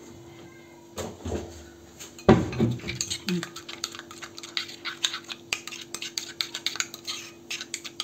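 Metal fork whisking a spice-and-oil marinade in a ceramic bowl: rapid clinks and scrapes against the bowl from about three seconds in, after two louder knocks.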